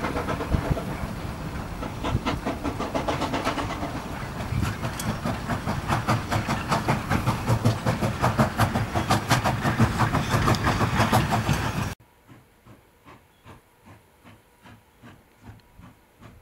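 Steam locomotive working hard as it pulls a train away, its exhaust beating in a quick steady rhythm over a hiss, with wind buffeting the microphone. About twelve seconds in, the sound drops suddenly to a much fainter, slower beat of a second steam locomotive working.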